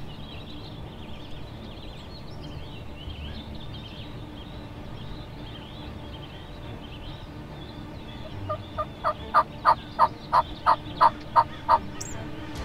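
A series of about a dozen turkey yelps, evenly spaced at roughly three a second, starting about two-thirds of the way in and stopping abruptly.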